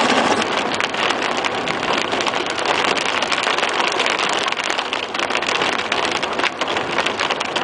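Heavy rain hitting a car's windshield and body while driving, heard from inside the car: a dense, steady hiss made of many small drop impacts.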